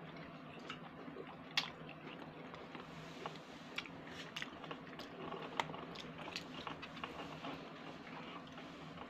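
A person eating pasta with chopsticks close to the microphone: irregular wet chewing and mouth clicks, one louder click about a second and a half in. A faint steady hum sits underneath.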